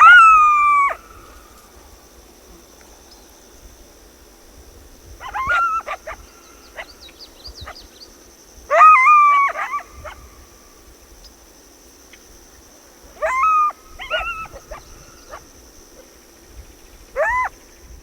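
Coyote calling in about five short bouts of yips and brief howls that rise and fall in pitch, a few seconds apart. A faint steady high tone runs underneath.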